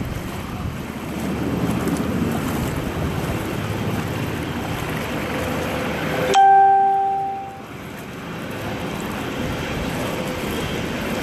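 Steady wash and slosh of floodwater as someone wades along a flooded street. About six seconds in, a loud single tone lasting about a second cuts in suddenly and fades.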